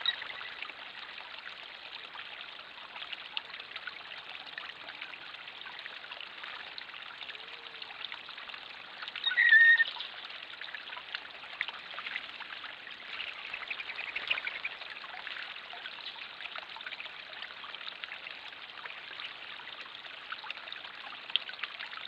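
Small backyard pond waterfall: water spilling steadily from a raised basin down a spillway into the pond, a continuous splashing trickle. About nine seconds in, one short, louder high-pitched call stands out above the water.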